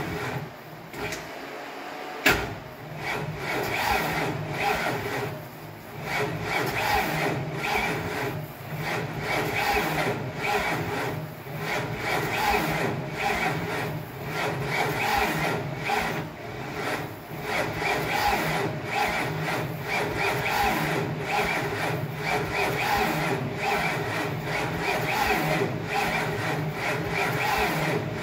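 Starter motor cranking the single-engine modified tractor's engine over in a slow, even rhythm without it catching, after a sharp click about two seconds in. It turns slowly for want of battery power.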